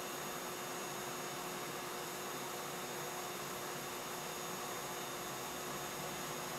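Steady machinery hum and hiss on a railway station platform, with a constant whine and no change in level: standing-train and station equipment ambience.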